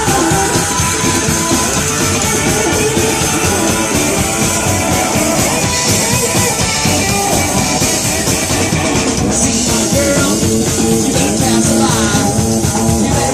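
Live psychobilly rock band playing an instrumental break between verses, loud and steady.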